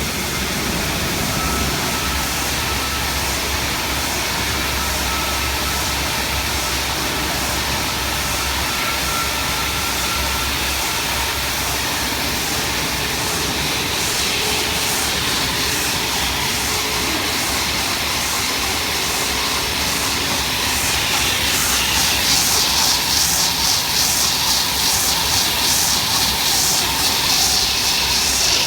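Paper-roll rewinder machine running with a steady mechanical noise. About twenty seconds in, a rapid, evenly repeating hissing pulse grows louder over the top.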